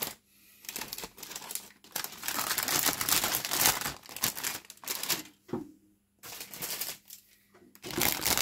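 Crinkling of the thin plastic bags that hold a plastic model kit's sprues as they are handled, in stretches of a few seconds with short pauses, after a sharp click at the start.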